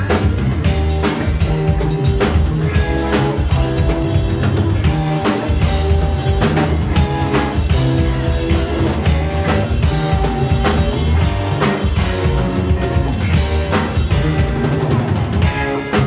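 Live rock band playing with a drum kit and guitar, a steady beat over low held notes.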